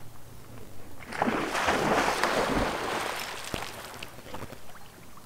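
Water splashing, starting about a second in, loudest for about two seconds and then fading, as an animal moves through the lake surface.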